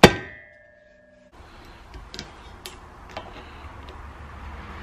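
A sharp metal clank right at the start, ringing briefly before it cuts off abruptly, then scattered small metallic clicks as snap-ring pliers fit a retaining clip into the groove of a U-joint bearing cap in a driveshaft yoke.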